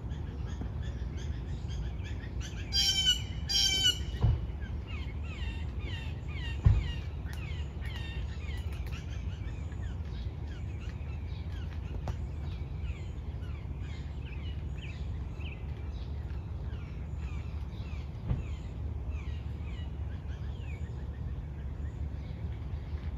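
Small birds chirping continually over a steady low outdoor rumble, with two loud harsh bird calls in quick succession about three seconds in. A few dull knocks sound now and then.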